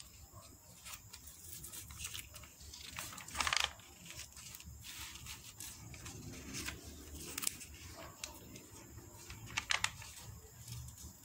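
Glossy catalogue pages being handled and turned, rustling with several short paper swishes; the loudest come about three and a half seconds in and near the end.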